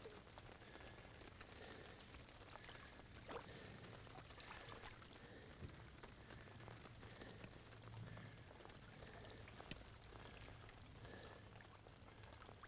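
Near silence: a faint patter of rain with a few scattered drops.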